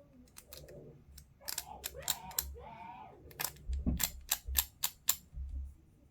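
Irregular sharp clicks and taps of hobby tools on small plastic miniature parts, densest through the middle.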